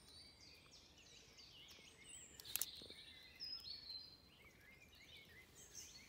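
Faint songbirds chirping and calling throughout, with a single sharp click about two and a half seconds in.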